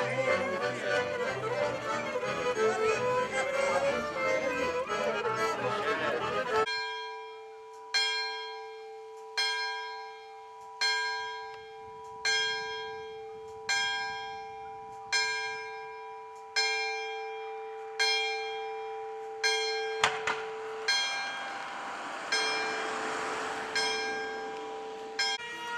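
A folk band of accordion, violin and double bass playing, which cuts off after about six seconds. Then a single church bell tolls slowly, one stroke about every one and a half seconds, each stroke ringing out and fading before the next.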